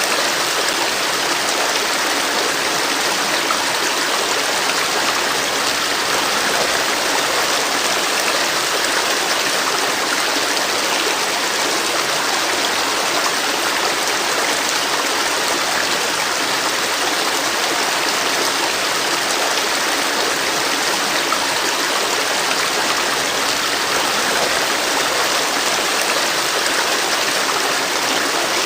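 River water flowing steadily over rocks, an even rushing with no breaks or changes.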